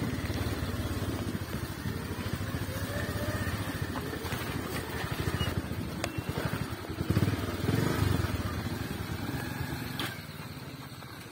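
Motorcycle engine running with a dense, rapid low throb, its note rising and falling a little, then easing off near the end.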